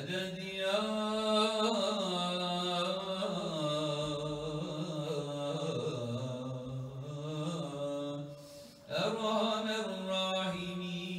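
A man's solo melodic Islamic chant into a microphone, long drawn-out phrases with wavering held notes. He breaks off briefly for breath about eight and a half seconds in, then resumes.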